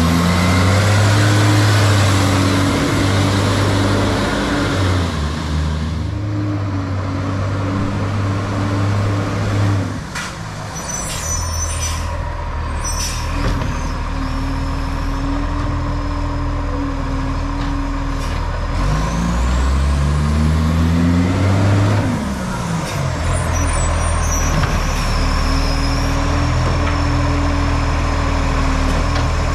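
Garbage truck's diesel engine with an exhaust leak, running loud and rising and falling in speed: held at raised revs, dropping back about ten seconds in, then climbing again around twenty seconds in and held high.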